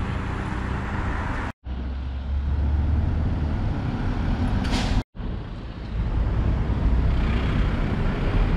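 Road traffic on a bridge: vehicle engines rumbling low and steady under tyre and road noise, with a brief high hiss about five seconds in. The sound cuts out abruptly twice, at edits in the recording.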